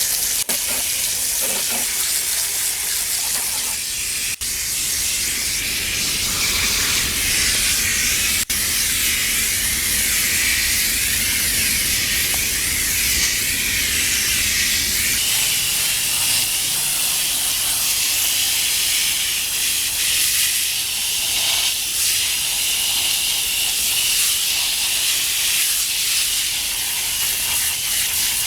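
Steady hiss of liquid spraying onto the heat pump's condenser coils during coil cleaning.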